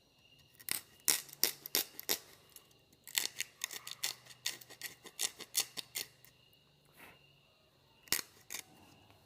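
A knife blade scraping and carving a finger hole in a dry bamboo flute tube, making irregular short, sharp scratchy strokes in quick clusters with brief pauses.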